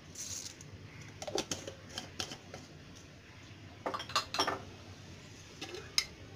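Mustard seeds crackling and popping in hot coconut oil: scattered sharp pops that come in a few clusters, the seeds beginning to splutter as the tempering starts.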